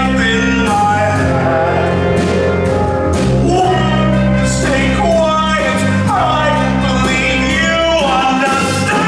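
Live pit orchestra playing held low chords that change every couple of seconds, with a man singing over them.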